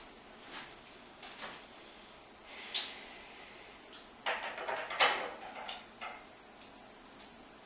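Praying mantis chewing its insect prey: a series of short, irregular crunching bites, the loudest about three and five seconds in, with a quick run of them just before the last.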